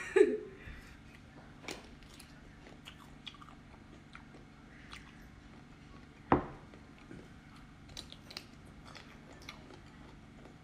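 Close-up, mouth-near chewing and biting of soft, chewy squid coated in chili oil: small wet clicks and smacks scattered through, with one louder sharp click about six seconds in.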